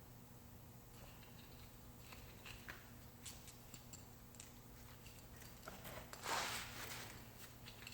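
Faint scattered clicks and light taps. About six seconds in comes a brief, louder rustling scrape.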